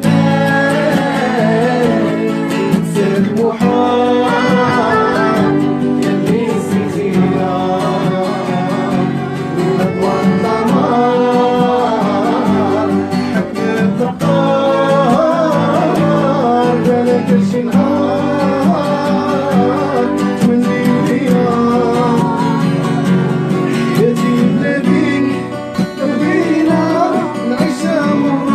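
Live band music with a violin playing a wavering melody over a plucked string instrument.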